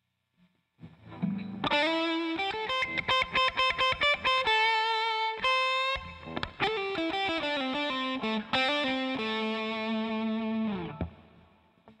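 Electric guitar played through an Electro-Harmonix East River Drive overdrive pedal, switched on, giving a distorted tone. A riff of quick, choppy notes gives way to longer held notes and ends with a slide down near the end before ringing out.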